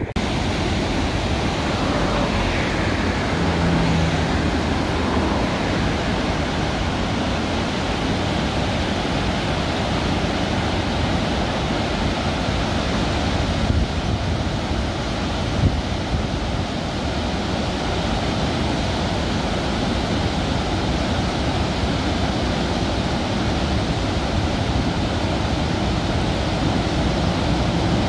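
River rapids: white water rushing over boulders, a loud, steady rushing noise with no let-up.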